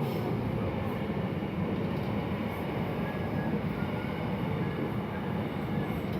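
A steady low rumbling noise that holds even throughout, with no distinct knocks or clicks.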